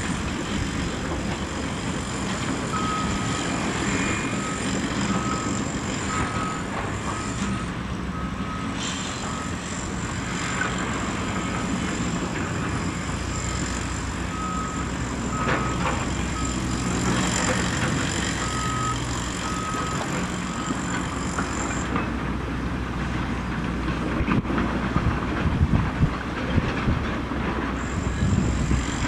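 Heavy earthmoving machinery running: the diesel engines of a Cat tracked excavator and a Cat bulldozer working steadily. A back-up alarm beeps about twice a second, on and off, through most of the first two-thirds. Near the end come irregular knocks and thuds as the excavator swings its bucket over the dump truck and loads soil into the bed.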